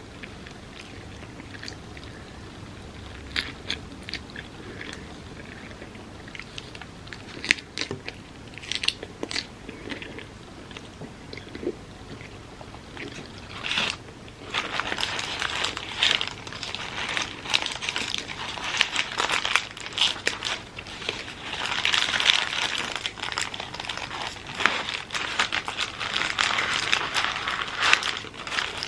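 Close-miked eating: a person bites and chews food. There are scattered wet mouth clicks at first, then from about halfway a dense run of crunchy chewing.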